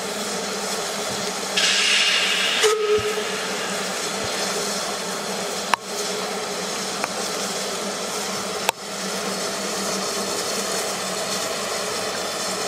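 Small narrow-gauge steam locomotive standing and hissing steam steadily, with a louder burst of hiss near the start and two sharp knocks midway.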